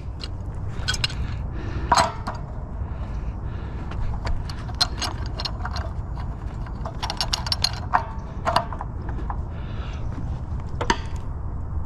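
Irregular metallic clicks and clinks of hand tools working on scrap metal, with a quick run of clicks about seven seconds in, over a steady low rumble.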